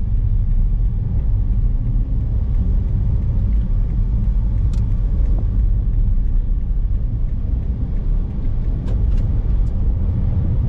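Inside the cabin of a Perodua Myvi 1.3 on the move: a steady low rumble of engine and road noise. A few brief clicks come about five seconds in and around nine seconds.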